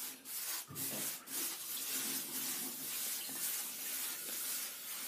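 A paintbrush scrubbing concrete-contact primer onto a rough wall: a steady scratchy rubbing, with separate strokes heard in the first second or so.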